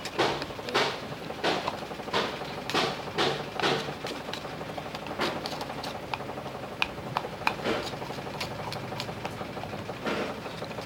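A utensil stirring a glue, water and dish-soap mixture in a jar, whipping it up to a foam, with quick strokes that tap and scrape against the container about one and a half times a second, growing fainter and more irregular after about five seconds. A low steady hum sits underneath.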